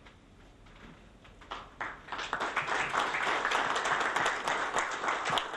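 Audience applause: a few scattered claps about a second and a half in, quickly swelling into steady clapping from many hands.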